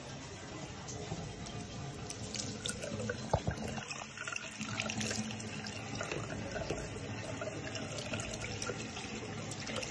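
Water running steadily from a push-top basin tap into a small ceramic hand basin, with a sharp knock about three seconds in.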